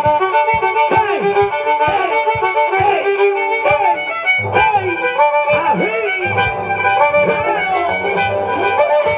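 Live festival music: a lively melody with gliding notes over a steady low beat of about two beats a second.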